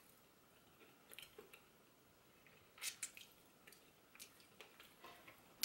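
Faint, wet mouth sounds of chewing and sucking on chicken feet: a few short smacks and clicks, the loudest about three seconds in.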